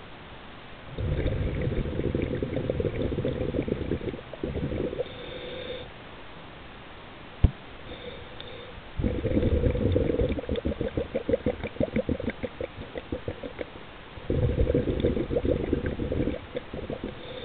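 Scuba diver's breathing heard underwater: three bursts of rumbling, gurgling exhaled bubbles from the regulator, a few seconds each, with quieter stretches between them and one sharp click about halfway through.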